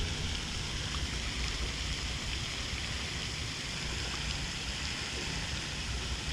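Steady outdoor hiss with a low, uneven rumble underneath, like wind or running water.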